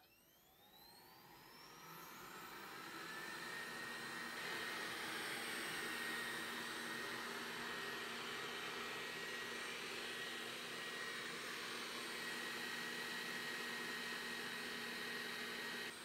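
Roborock S5 robot vacuum starting up about two seconds in: its fan rises in pitch and level, then runs as a steady whirring with a thin high whine.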